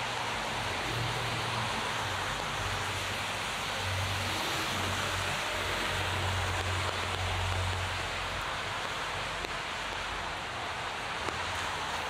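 Heavy rain falling with a steady hiss, over a low rumble that swells in the middle.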